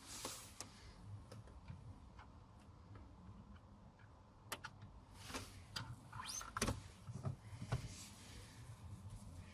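Scattered faint plastic clicks and knocks as a Volvo S60 gear lever handle with its repaired button is fitted back onto the shifter, with a short rising squeak about six seconds in.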